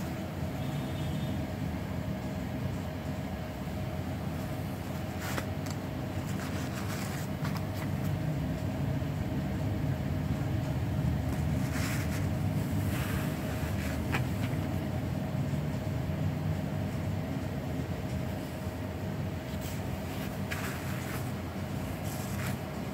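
Steady low rumble with a constant mid-pitched hum underneath, and a few brief taps and rustles as plastic-and-rubber flat sandals are handled.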